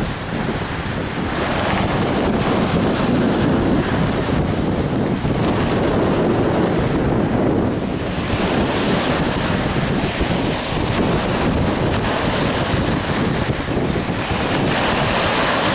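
Rough, wind-whipped sea surf breaking on the beach, with strong wind buffeting the microphone in loud, uneven gusts.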